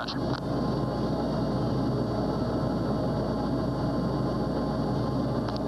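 A steady, dense low drone with a few faint, steady high tones over it, holding level without a break.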